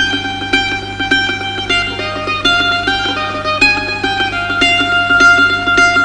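Background music: a plucked-string melody of quick, stepping notes over a steady low drone.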